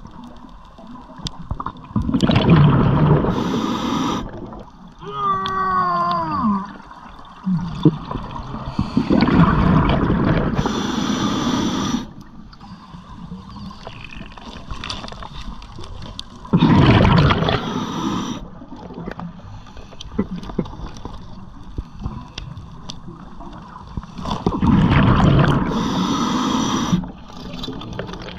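Underwater scuba breathing through a regulator: a loud bubbling rush of exhaled air every six or seven seconds, some breaths with a short high hiss. About five seconds in comes a brief falling tone.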